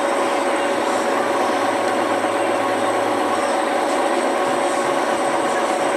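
TV-4 'Shkolnik' school lathe running steadily: an even mechanical whir with a constant whine.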